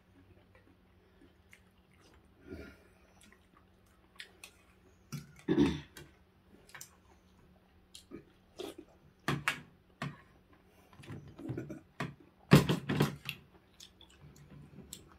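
Mukbang eating sounds: chewing and slurping from spoons of soup and rice, with metal spoons and a fork clicking against ceramic bowls in scattered sharp taps and a few louder bursts.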